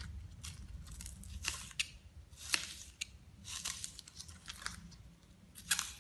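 Kitchen knife slicing through spring onion stalks on a plastic cutting board: a series of crisp, irregular cuts, a few a second.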